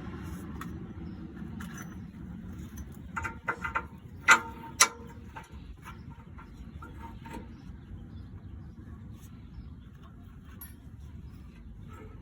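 Metal exhaust pipe parts clanking and knocking as they are handled and offered up under the car, a few small knocks followed by two loud clanks about four and a half seconds in, over steady background noise.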